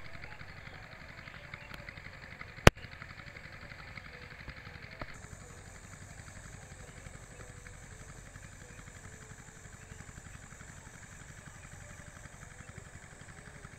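Steady outdoor background noise with a faint low engine hum, broken by one sharp click about three seconds in; a higher hiss comes in about five seconds in.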